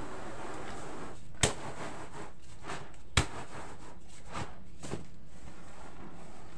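Damp cassava flour rustling and swishing as it is swirled and tossed in a round woven-bamboo tray to roll it into tiwul granules, with softer strokes coming every half second or so. Two sharp knocks, about a second and a half in and about three seconds in, are the loudest sounds.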